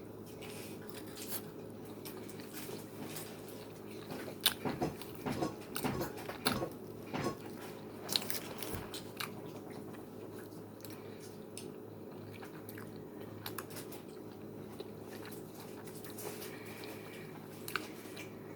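Close-miked chewing and mouth sounds of a person eating a chili cheese dog, with a run of louder bites and smacks between about four and nine seconds in and quieter chewing after. A steady low hum lies underneath.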